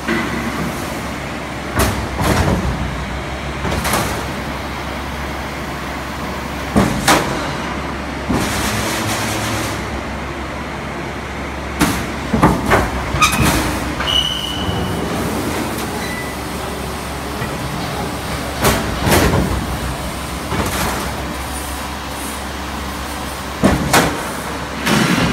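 Corrugated fin forming machine for transformer tanks running through its cycle: a steady machine hum, with bursts of metallic clanks and short hisses about every five seconds as the fins are folded.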